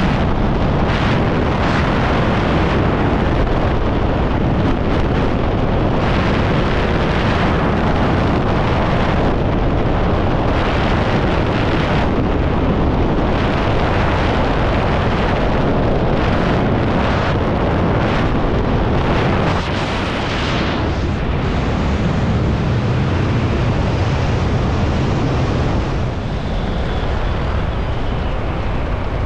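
Loud, steady rush of wind over a helmet-mounted camera's microphone during a skydive, easing slightly about two-thirds of the way through.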